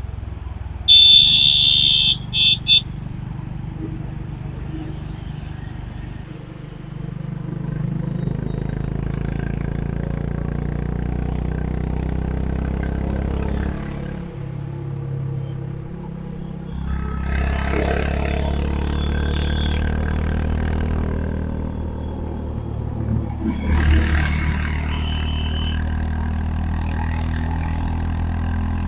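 Honda H'ness CB350 single-cylinder engine running under way, pulling harder twice as the revs rise. About a second in, a horn sounds once long and then gives two short toots.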